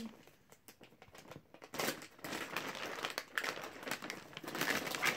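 Plastic candy bag crinkling as it is handled and worked open, starting about two seconds in after a few faint clicks.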